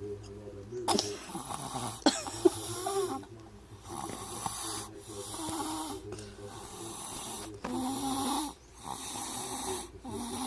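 Sleeping baby snoring: a rasping, wavering snore on each breath, with short pauses between breaths about every second and a half. A few sharp clicks come around two seconds in.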